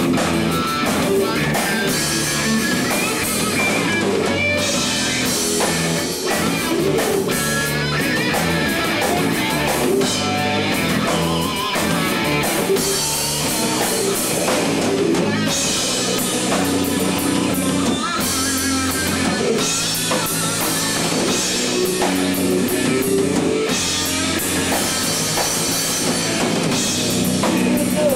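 Rock music, an instrumental passage of guitar over a drum kit, with gliding, bent guitar notes and no vocals.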